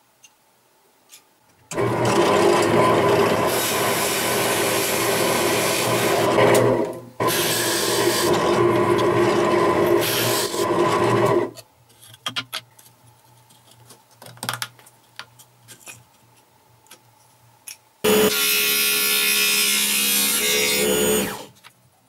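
A drill press with a stepped drill bit cuts a hole through thin plywood in two runs of about five and four seconds, followed by a few light clicks as the piece is handled. About eighteen seconds in, a scroll saw runs for about three seconds, cutting the plywood.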